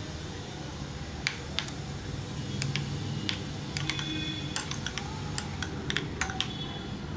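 A spoon clicking and clinking against a glass bowl while fruit pieces are stirred into the liquid jelly mixture. The light clicks come irregularly, thickest around the middle, a few with a short ring.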